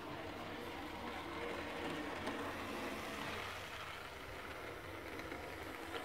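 N-scale model diesel locomotive running slowly along the track: a steady running noise from its small electric motor and wheels on the rails.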